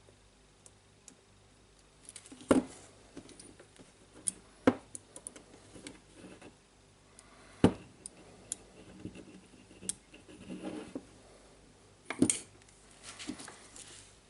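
Parts of a cordless jigsaw being handled on a workbench during a motor swap: four sharp knocks, with lighter clicks, scraping and rustling between them.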